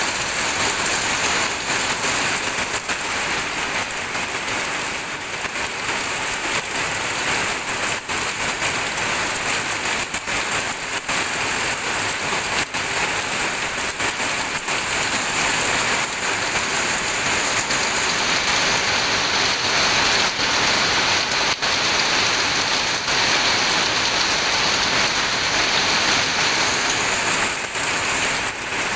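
Steady rain falling, a constant hiss dotted with many small drop hits.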